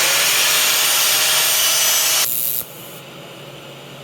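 A power-tool wire wheel scrubs a cracked Subaru manifold clean ahead of welding: a loud, rough scratching, with the motor's whine rising as it spins up. It stops about two and a half seconds in.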